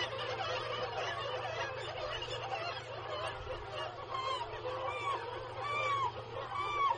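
Black-legged kittiwake nesting colony calling: a dense din of many overlapping calls. From about four seconds in, one bird's calls stand out, repeated in a regular string less than a second apart.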